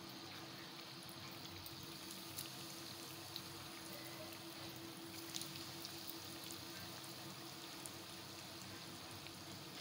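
Semolina-coated paneer cutlets deep-frying in hot oil in a kadhai: a faint, steady sizzle with a few small pops.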